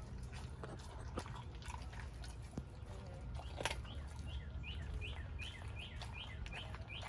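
A dog chewing and crunching a raw whole chicken, heard as scattered clicks with one sharper crack about halfway, over a steady low rumble. From about four seconds in, a small bird repeats a short falling chirp, about four times a second.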